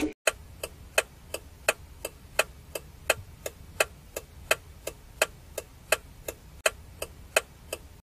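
Clock ticking sound effect: an even tick-tock of sharp ticks, about three a second.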